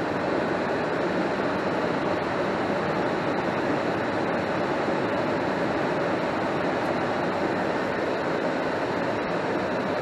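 Goodman 80% single-stage gas furnace running with steady fan and air-rushing noise. It is staying on with the thermostat off, a sign of a stray call for heat on the W thermostat wire.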